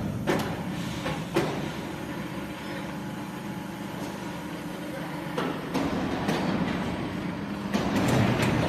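Steady industrial machinery hum with sharp metal clanks, one near the start, another about a second and a half in, and more around five and a half seconds; the noise grows louder and busier near the end.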